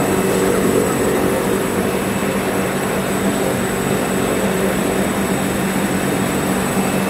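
SJ110 single-stage strand pelletizing line for recycled PE/PP running: a steady machine drone with a constant low hum.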